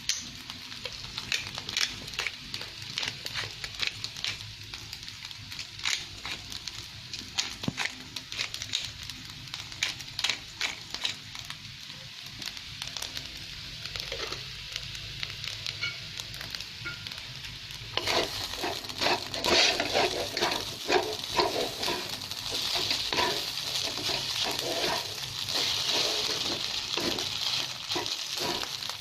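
Fried rice sizzling in a frying pan while it is stirred, with many small crackles and the clicks of the spatula against the pan. About 18 seconds in the sizzling and stirring get louder and busier.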